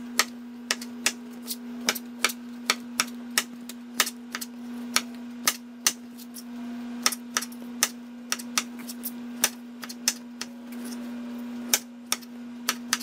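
Kitchen knife slicing peeled tomatoes on a plastic cutting board, the blade clicking sharply against the board two or three times a second at an uneven pace, over a steady low hum.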